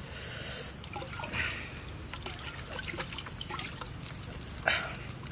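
Water trickling and dripping into a clay pot as shucked oyster meat is rinsed by hand, with scattered small clicks and one sharper click near the end.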